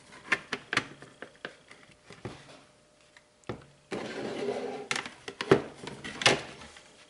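Two halves of a Cooper SK2000 HDPE plastic helmet shell being handled and slid together. A string of sharp plastic clicks and knocks, then a rough scraping as one shell rubs into the other, with two louder knocks near the end.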